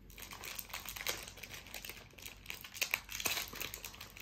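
Plastic snack-bar wrapper crinkling and tearing as it is pulled open by hand, in irregular crackles.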